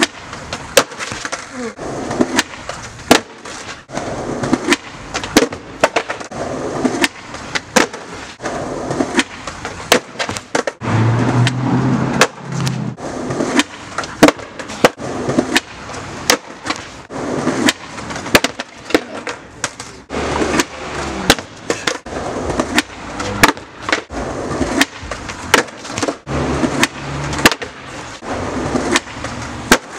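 Skateboard wheels rolling on concrete, with many sharp clacks of the board popping, landing and slapping on the pavement during frontside bigspin attempts down a ten-stair. Near the end the skater falls and the board clatters away across the ground.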